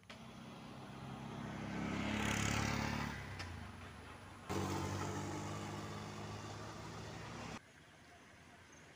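A motor vehicle passing close by: its engine grows louder, peaks about two and a half seconds in, then falls in pitch and fades. About four and a half seconds in an engine starts up suddenly and runs steadily, then stops abruptly near the end.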